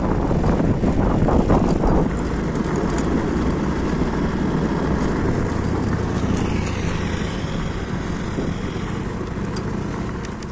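A vehicle engine, most likely a motorcycle's, running while it is ridden along a rough road, with wind rumbling across the microphone.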